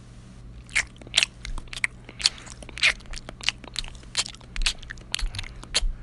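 Someone crunching and chewing a crunchy snack such as chips, a quick irregular run of sharp crunches, over a faint low hum.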